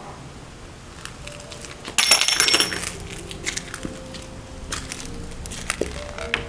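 Grit and debris being swept along a hard floor, with one loud scratchy sweep about two seconds in, then lighter scrapes and small clicks of particles.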